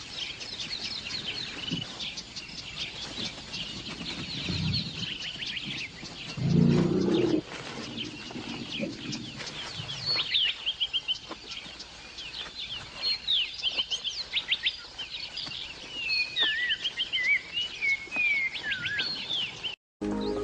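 Many small birds chirping and trilling in quick, overlapping calls, with a short low sound about six and a half seconds in.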